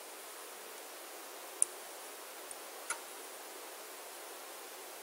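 Quiet room tone: a steady faint hiss with two small clicks, one about a second and a half in and a fainter one about three seconds in.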